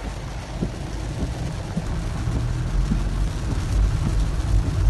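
Inside a car driving through heavy rain: a steady low rumble of engine and tyres on the wet road, with a hiss of rain, growing slightly louder.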